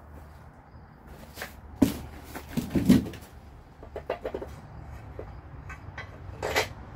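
Scattered metal clinks and knocks from hand-fitting steel front-suspension parts (wishbone, axle and nut) on a Model A front axle. The loudest cluster comes about two to three seconds in, then a quick run of small ticks around four seconds and a single click near the end.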